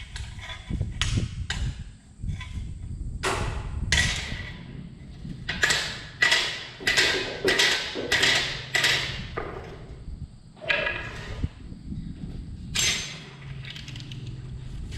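A run of short hissing spray bursts from a pressurised nozzle, about ten in all, most coming in quick succession roughly twice a second, over a low rumble.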